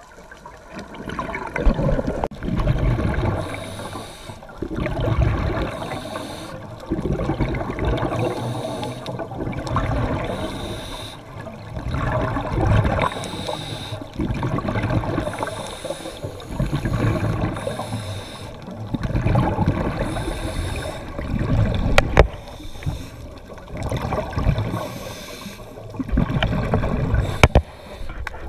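Sea water rushing and splashing along a sailing catamaran's hull, swelling and fading every two to three seconds, with wind buffeting the microphone. Two sharp knocks in the later part.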